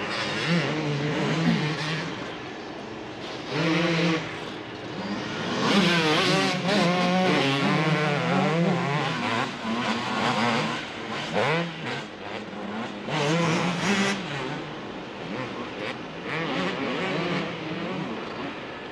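Single-cylinder two-stroke motocross engines, among them a 1998 Yamaha YZ250, revving hard and dropping back as the throttle is opened and shut over jumps and corners, the pitch rising and falling again and again. Several engines overlap about six to nine seconds in.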